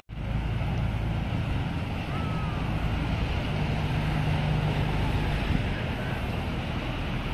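Steady low drone of a tour boat's engine on the river, mixed with wind rushing over the microphone.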